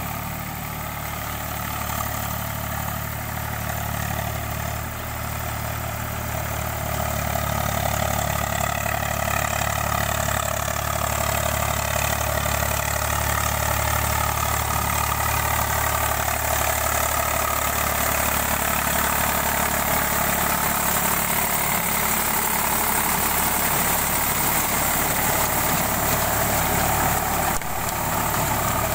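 Eicher 485 tractor's three-cylinder diesel engine running steadily while it works a rotavator through a wet paddy field, growing louder as the tractor comes close about eight seconds in.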